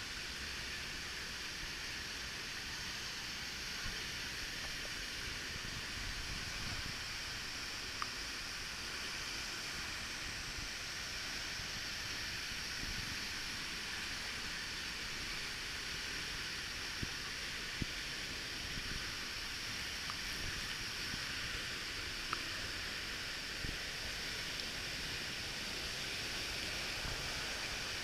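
Steady rushing of the Salto del Agrio waterfall, with a few faint clicks scattered through it.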